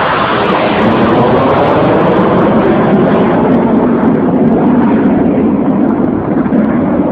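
Low-flying fighter jet passing by. Its loud jet engine noise falls steadily in pitch as it goes past.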